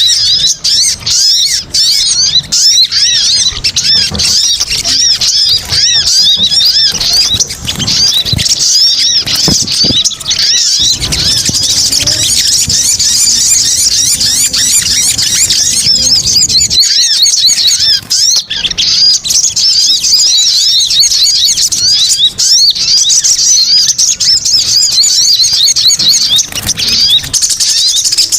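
Sogon (sunbird) lure call: many high, rapid chirps and twitters overlapping in a dense, busy chatter with no pause, the agitated 'ribut' calling used to draw sunbirds in. A low rumble sits underneath for a few seconds in the middle.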